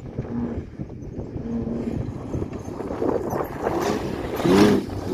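Ford Ranger prerunner's engine running as the truck charges the jump, over wind buffeting the microphone. The engine note swells and swings up and down in pitch about four and a half seconds in as the truck leaves the ground, the loudest moment.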